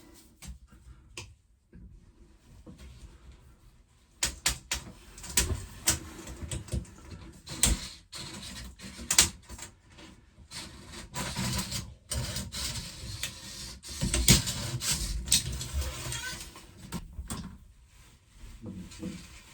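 Irregular clicks, knocks and scrapes of hand tools and materials being handled in a cramped boat locker. Sparse for the first few seconds, then a busy run of sharp knocks.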